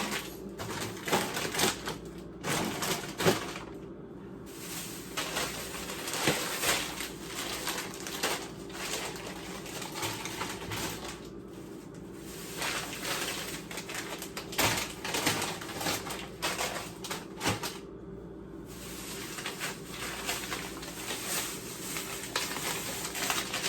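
Irregular clattering and knocking of household objects being handled, over a steady low hum.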